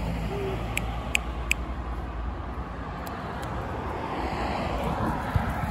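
Outdoor street ambience: a vehicle's low rumble that fades out about two seconds in, over steady background noise, with a few short high chirps about a second in.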